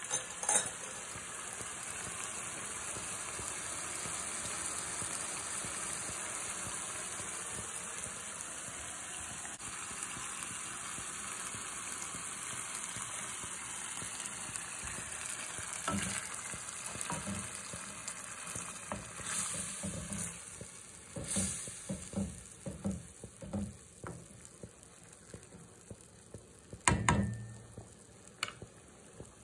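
Risotto sizzling and simmering in a frying pan as the rice absorbs the chicken stock, a steady hiss that fades away about two-thirds of the way through. Scattered knocks and clunks follow, the loudest near the end.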